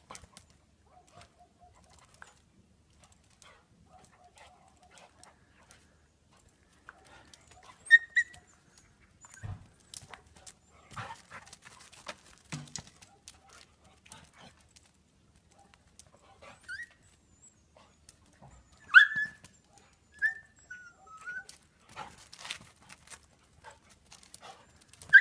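Dog whimpering and yelping in short, high, wavering cries, a few times, the loudest about three quarters of the way in, amid scuffling and scraping of dogs tussling on stone, with a couple of dull thumps.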